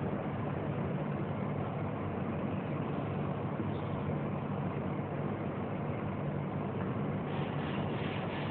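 Steady hiss with a constant low hum, the background noise of an old off-air television recording; no distinct sound stands out.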